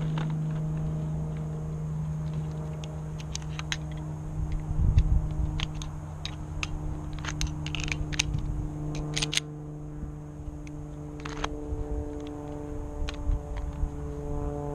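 A Taurus PT111 9mm pistol being handled, with scattered sharp metallic clicks, most of them between about seven and nine and a half seconds in and one more a little later. Under them runs a steady low droning hum, with a heavier low thump about five seconds in.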